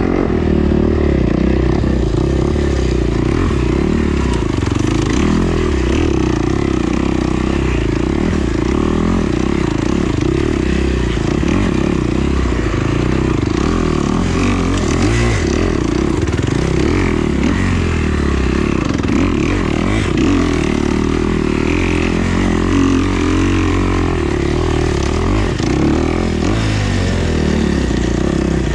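Dirt bike engine running steadily under riding, with no let-up.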